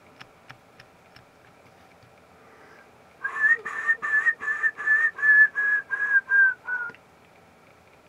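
Grey-headed woodpecker song, whistled: a series of about eleven clear notes, each a little lower than the last, starting about three seconds in and lasting just under four seconds.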